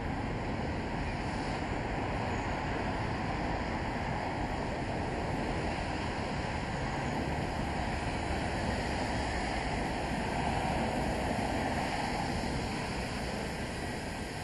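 Failed Class 33 diesel locomotive making a steady vacuum-cleaner-like rushing noise, like a hoover, swelling slightly near the end.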